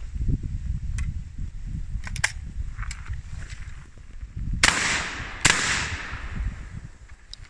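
Beretta 12-gauge over-and-under shotgun fired twice, the two shots under a second apart, each followed by a fading echo. A few light metallic clicks from the gun's action come a couple of seconds before the shots.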